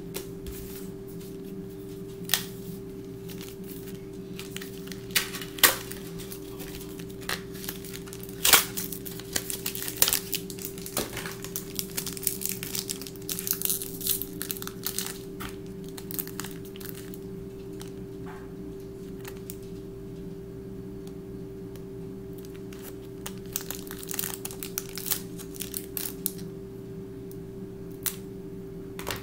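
Foil Pokémon booster-pack wrapper crinkling and tearing as it is worked open by hand, in irregular bursts of crackles that are busiest in the middle and again near the end. A steady low hum runs beneath.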